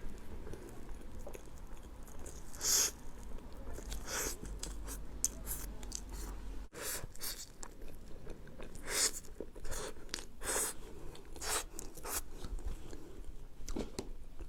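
Close-miked chewing and biting of a dessert, irregular mouth clicks and smacks.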